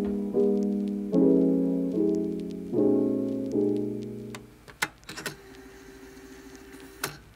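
Background piano music: chords struck about once a second, each ringing and fading, until the music dies away a little over halfway through. A few sharp clicks and a faint steady hum follow.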